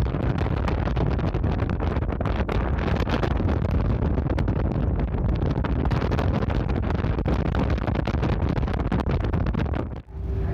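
Strong wind buffeting the microphone over a low rumble from a sightseeing icebreaker under way. The sound cuts off abruptly about ten seconds in.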